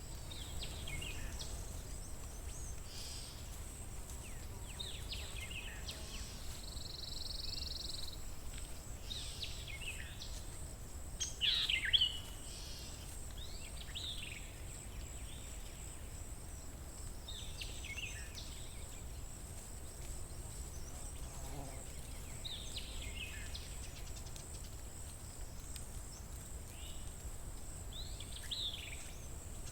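Songbirds chirping and calling at intervals, the loudest call about twelve seconds in, over a steady low background rumble.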